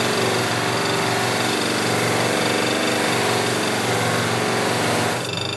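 Bench buffer motor running steadily, its cloth wheel loaded with white diamond compound rubbing across a laser-engraved MDF board as it is polished. About five seconds in the rubbing hiss falls away as the board comes off the wheel, and the motor hum carries on.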